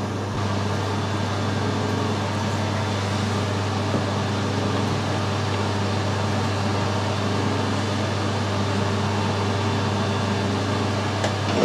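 Steady low mechanical hum of workshop machinery running. Near the end it changes and grows louder as the lathe starts turning.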